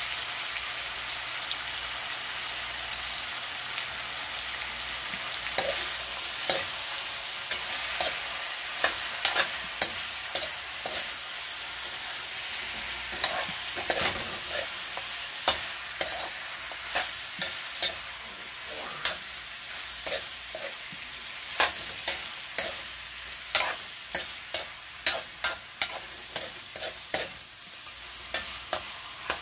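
Goat meat, tomatoes and onions sizzling in a metal wok while a metal spoon stirs them, clinking and scraping against the pan many times from about five seconds in.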